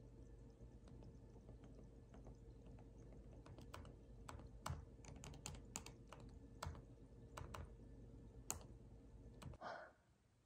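Faint, irregular clicks of a MacBook's keys and trackpad, starting a few seconds in, over a low steady room hum.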